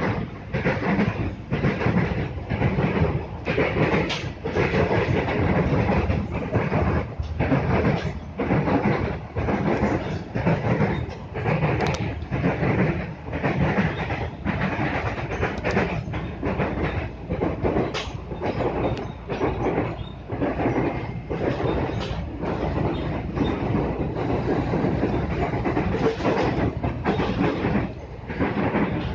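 KRL commuter electric train running between stations, heard from inside the carriage: a continuous rumble with clattering wheels on the rails.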